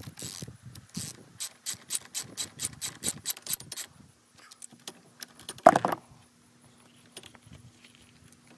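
Socket ratchet clicking rapidly, about five clicks a second, for a few seconds while a bolt is turned. Then a single loud knock, and after that only faint low noise.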